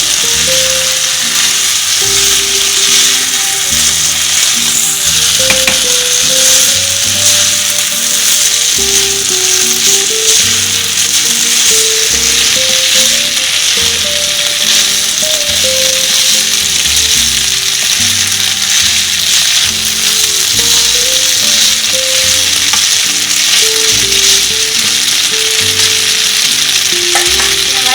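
Chicken and soaked basmati rice sizzling in a hot pan as they are stirred, a steady frying hiss, with background music playing underneath.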